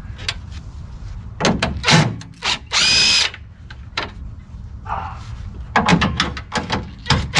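Cordless impact driver running in one short burst of about half a second, backing out a 10 mm bolt. Sharp clinks and knocks of tool and bolt handling come before and after it.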